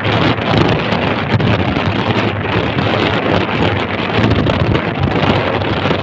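Loud, steady rushing noise of wind buffeting the microphone.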